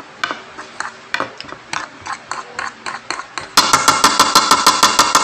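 Metal spoon and fork clinking and scraping against a plate: scattered taps at first. About three and a half seconds in comes a louder, rapid run of ringing clinks, roughly eight a second, lasting nearly two seconds.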